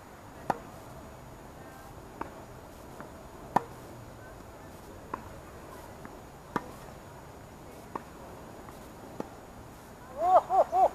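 Tennis ball struck back and forth in a rally, sharp pops of racket hits and bounces about every one and a half seconds. Near the end comes a loud run of four short pitched calls and a longer one.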